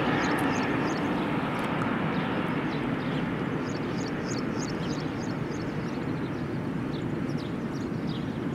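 Jet engine noise from a Boeing 737-800's CFM56 engines, a steady sound that slowly fades as the airliner flies away on final approach. Birds chirp over it throughout.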